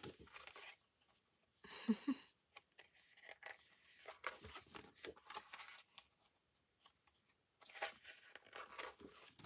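Pages of a spiral-bound paper desk calendar being turned and handled: soft paper rustling and small ticks, with a louder page flip about two seconds in and another near the end.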